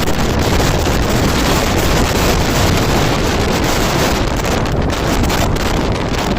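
Janshatabdi Express train passing at speed, a steady, loud rushing noise of wheels and coaches, with wind buffeting the microphone.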